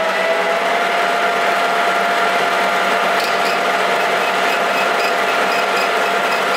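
Metal-turning lathe running at steady speed, its spindle gearing giving a constant whine over a mechanical hum as the three-jaw chuck spins. A faint regular ticking joins about halfway.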